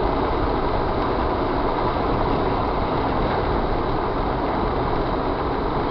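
Steady rumble and noise of a moving vehicle, even throughout with no distinct events.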